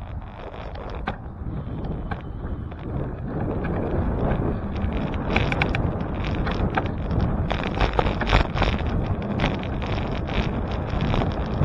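Wind buffeting the microphone of a camera on a moving bicycle, building over the first few seconds and then holding steady, with scattered clicks and knocks over the rushing noise.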